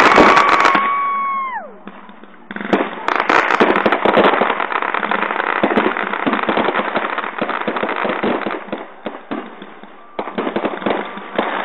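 Fireworks going off in a dense run of crackling pops. A whistle holds its pitch, then falls away about a second and a half in. After a short lull the crackling starts again and keeps going, with a brief dip near the end.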